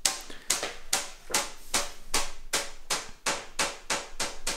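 Marbles clicking together: a steady run of sharp clicks, about two and a half a second, each with a short ring.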